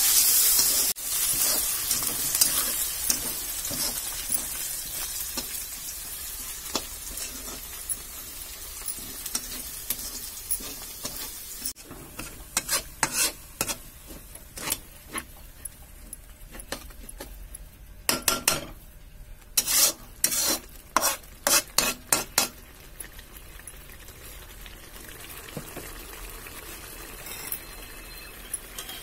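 Onions and then masala frying in oil in a kadai, sizzling loudly in the first second and more quietly after. A spatula stirs and scrapes against the pan in a run of sharp strokes through the second half, thickest a little past the middle.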